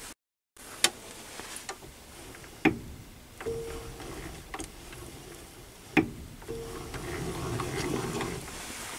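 A few sharp, isolated metallic clicks, about four spread over several seconds, from the mini lathe's carriage and carriage stop being handled, over a faint steady hum.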